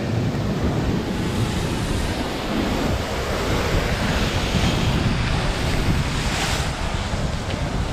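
Sea surf breaking against rocky cliffs below, a steady rush with wind buffeting the microphone, and a brief louder rush near the end.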